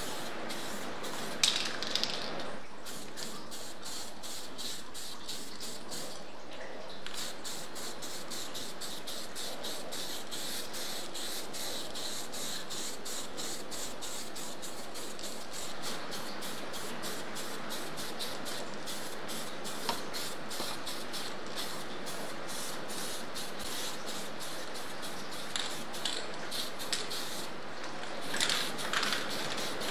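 Aerosol spray-paint can hissing steadily as paint is sprayed, with brief pauses, and a few short, sharper noises about two seconds in and again near the end.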